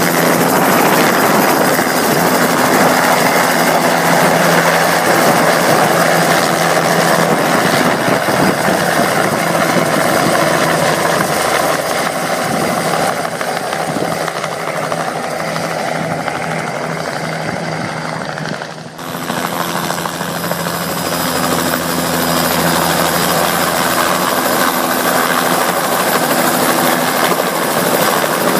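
Bell 206 JetRanger helicopter's turbine and rotor running as it hovers and flies low. The sound fades somewhat as it moves away through the middle, then grows loud again as it comes back close, with a sudden brief break about two thirds through.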